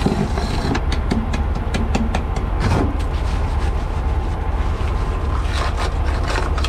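A hammer knocking ice off a semi-trailer's frozen front and side rail: a run of sharp knocks, thickest in the first couple of seconds and again near the end. Under the knocks is the steady low rumble of the truck's diesel engine idling.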